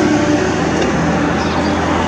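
Steady rumble of city traffic, with a low engine-like hum running under it.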